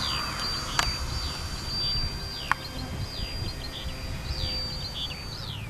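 Birds calling outdoors: repeated high, falling whistles and short chirps over a low rumble of wind on the microphone. A thin, steady high tone runs until near the end, and there are two sharp clicks.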